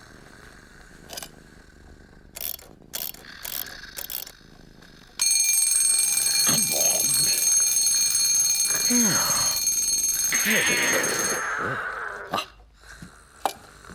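A few soft clicks and knocks, then about five seconds in an alarm clock starts ringing, loud and steady, for about six seconds before it stops. Short gliding voice-like sounds come over the ringing.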